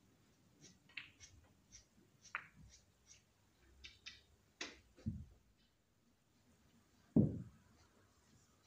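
A string of light, sharp clicks and taps, then a dull knock, and a heavier low knock about seven seconds in.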